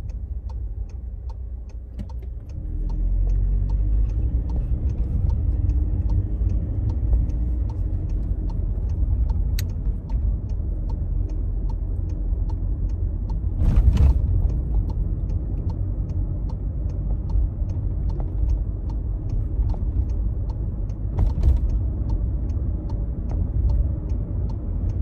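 Steady low road and engine rumble heard inside a moving car at dual-carriageway speed, growing louder about two and a half seconds in. Near the middle comes a brief louder rush, with a smaller one later.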